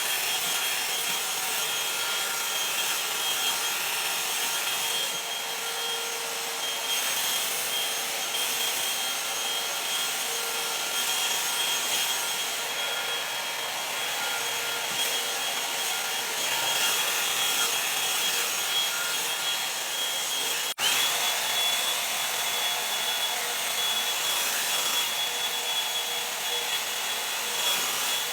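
Revlon blow dryer brush running steadily, a hot-air fan with a thin high whine over its rushing air, worked through wet hair. The sound breaks for an instant about 21 seconds in, then carries on.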